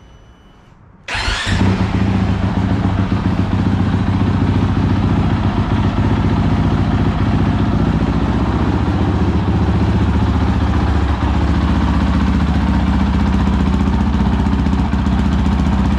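Honda CRF450L single-cylinder four-stroke engine firing up about a second in and settling into a steady idle, running on freshly changed oil; it sounds happy.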